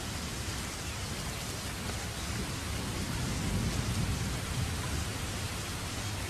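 Steady rain falling, an even continuous hiss, with a low rumble swelling about three to four seconds in.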